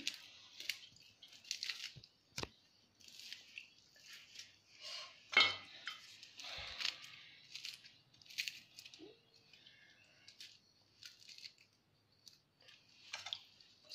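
Charred skin being picked and peeled off fire-roasted eggplants by hand in a steel bowl: short crackling, rustling bursts, with a few light knocks, the loudest about five seconds in.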